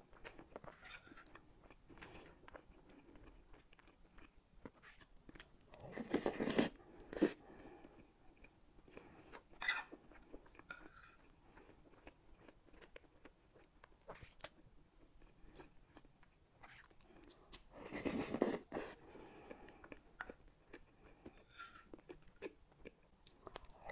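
Close-miked wet chewing and mouth sounds from someone eating a soft cream-covered cake with chewy tapioca pearls, with small spoon clicks. Two louder, longer noisy bursts come about six seconds in and about eighteen seconds in.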